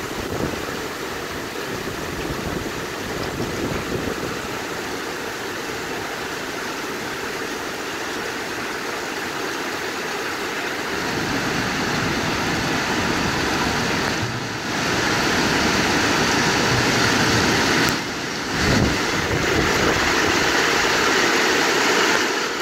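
Heavy rainstorm with strong wind: a steady rushing of rain that grows louder about halfway through, with brief dips near the end.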